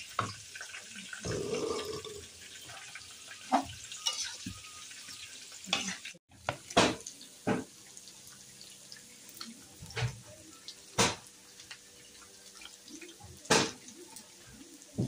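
Kitchen clatter: scattered sharp knocks and clinks over running or splashing water.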